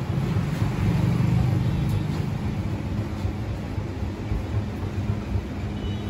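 Low, steady hum of a motor vehicle's engine running, louder for the first couple of seconds and then holding steady.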